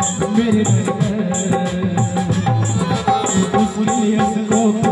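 Live Indian song accompaniment with no vocal line: a Roland keyboard and a dholak play an instrumental passage to a steady beat.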